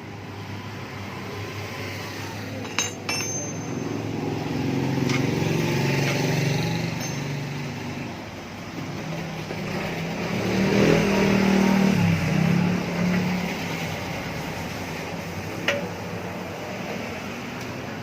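A few sharp metal clinks of hand tools against the motorcycle's exhaust while the oxygen sensor is being worked loose: two about three seconds in and one near the end. Under them is a steady vehicle hum that swells to its loudest midway.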